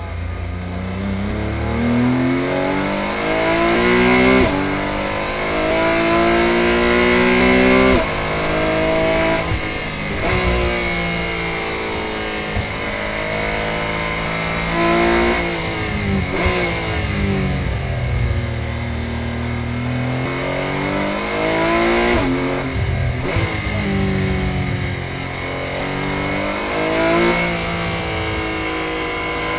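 Porsche 718 Cayman GT4 Clubsport's naturally aspirated flat-six, heard from inside the cockpit, pulling hard through the gears on track. Its pitch climbs on each pull and breaks off sharply at the gear changes and lifts, several times over.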